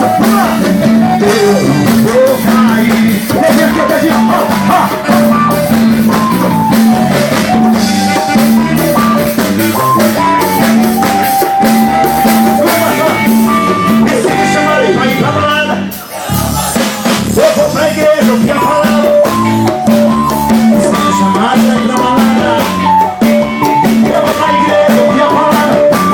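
Live band playing an upbeat song with drum kit, guitar and a keyboard-like melody line, with a short break about sixteen seconds in before the beat resumes.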